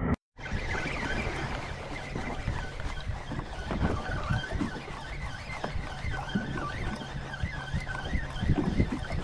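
Sea-Doo personal watercraft engine running at low trolling speed, a steady low hum. A wavering high-pitched sound rises and falls above it, with light splashes and knocks. It starts after a short dropout.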